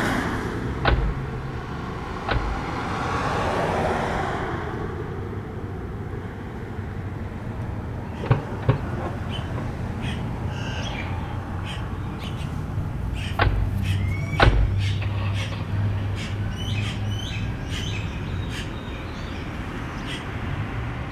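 Car doors opening and shutting, with about five sharp thuds spread over the stretch, over a car engine running steadily. Birds chirp through the second half.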